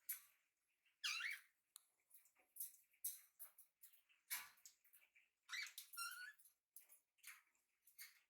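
Pet budgerigars chattering: a run of short, quiet chirps and warbles, some sliding up or down in pitch.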